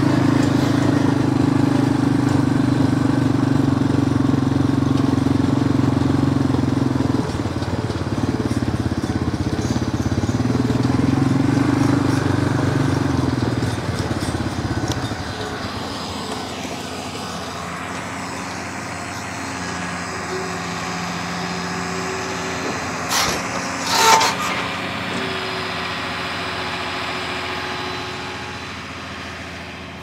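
Farm tractor engine running steadily as it pulls a round baler carrying a bale; loud for about the first half, then fading as it moves off. Two sharp knocks come about three-quarters of the way through.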